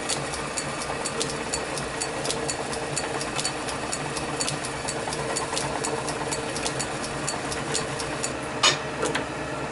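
Small metal lathe running steadily with a twist drill in the tailstock chuck drilling into the end of spinning brass bar stock, with a regular light ticking about four times a second. A sharper click and scrape near the end.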